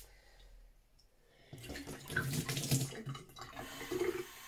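Kitchen tap running water into a small glass jar held under it, starting about a second and a half in.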